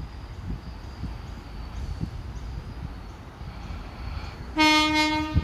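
Wind rumbling on the microphone at a railway platform. Near the end an approaching train gives one short horn blast, a single steady note lasting under a second.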